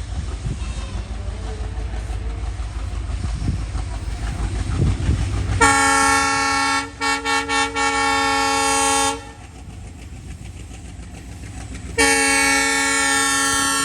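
WDM-3D diesel locomotive's horn sounding over the low rumble of the moving train: one long blast about halfway in, broken by several quick stutters, then a second blast starting near the end.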